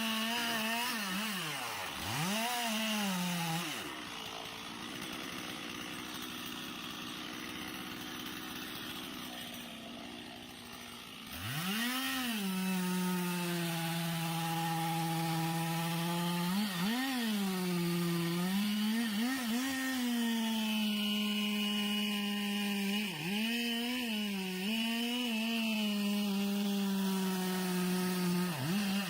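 Chainsaw engine running at high revs, its pitch dropping sharply and climbing back several times as the throttle is eased off and opened again. For several seconds near the start the engine falls away, leaving a quieter noise, before it revs back up.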